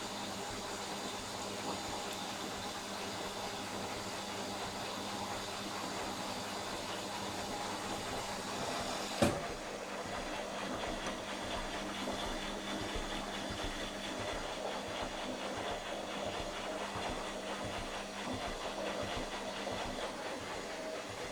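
Indesit Innex washing machine on its spin cycle, the drum and motor running steadily with a hum of several steady tones and a rushing hiss. A single sharp click about nine seconds in.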